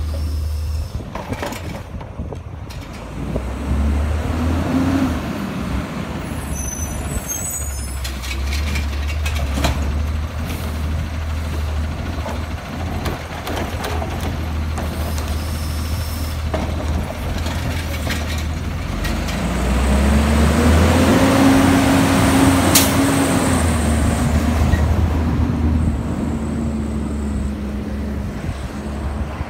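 Diesel engine of an automated side-loader garbage truck running steadily while its arm lifts and tips curbside carts. About two-thirds through the engine revs up and holds as the truck pulls away, with a sharp air-brake hiss.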